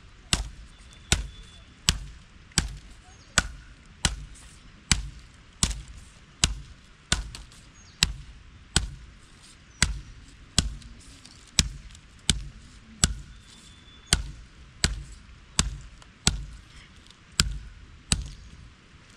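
Steady chopping: evenly spaced sharp knocks, each with a dull thud, about four every three seconds.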